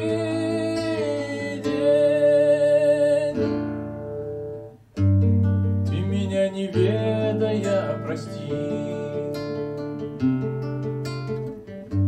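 A man's sung note held with vibrato over acoustic guitar for about three seconds, fading out, then acoustic guitar chords strummed as an instrumental break after a brief dip about five seconds in.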